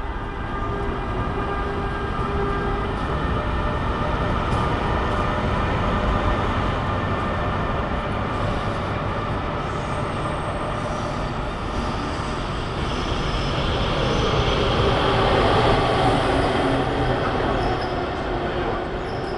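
Passenger coaches of a locomotive-hauled express train rolling slowly past along a platform, with the steady tones of the Class 186 electric locomotive fading in the first few seconds. A wheel squeal rises and swells about two-thirds of the way through.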